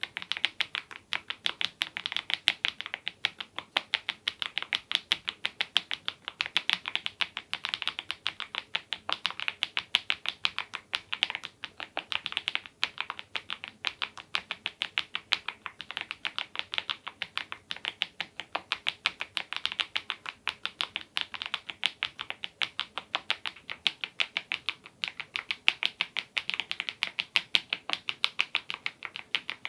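Mechanical keyboard being typed on continuously: KEYTOK Godzilla keycaps in Smile profile (a Cherry-style profile with rounded-off undersides) on HMX Cheese switches. It is a fast, unbroken run of sharp, bright key clacks, many strokes a second.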